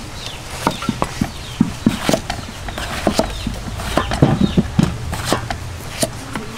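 A large knife chopping a green vegetable into chunks on a round wooden chopping board, giving sharp knocks at an irregular pace. Chickens cluck in the background.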